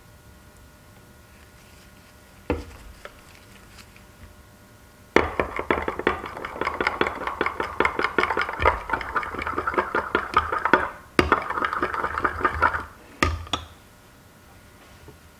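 A metal spoon stirs colour into liquid soft plastic in a glass measuring cup, scraping and clinking quickly against the glass from about five seconds in until near the end, with a short pause partway. A single knock comes earlier.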